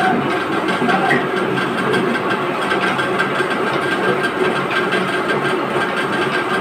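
Belt-driven mustard oil expeller running steadily as it presses mustard seed: a loud, even mechanical drone from its motor, belts and pulleys.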